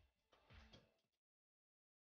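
Faint background music with a drum beat fading out, cutting to dead silence a little past a second in.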